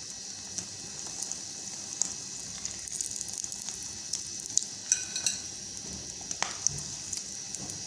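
Samosas deep-frying in moderately hot oil on a low flame, nearly done and light golden on both sides: a steady sizzle with scattered crackles and pops.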